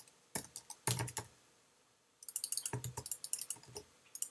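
Typing on a computer keyboard: a few separate keystrokes in the first second or so, then a fast run of typing from about halfway through.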